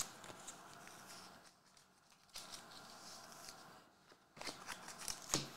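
Faint rustling and light clicks of trading cards and packs being handled by hand, in three short spells, the last one ending in a sharper click.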